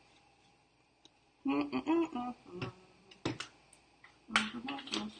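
A woman humming to herself in two short snatches, about a second and a half in and again near the end, with a few sharp knocks between as spice containers are set down and put away. The last knock is the loudest sound.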